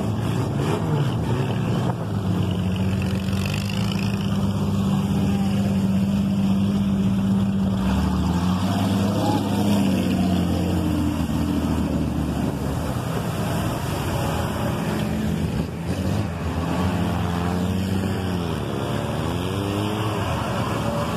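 Off-road vehicle engines running as 4x4s drive through deep mud and water, with a steady engine drone and the noise of churning mud and water; about three-quarters of the way through an engine revs up and down several times as a vehicle pushes through the mud.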